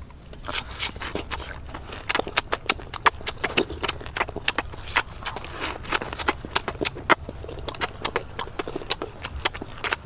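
Close-up chewing of cooked grasshoppers: a rapid, irregular run of sharp crunches, thickest from about two seconds in.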